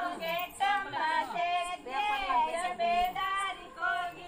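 Women and girls singing a song together, unaccompanied, the melody held in long, bending sung notes.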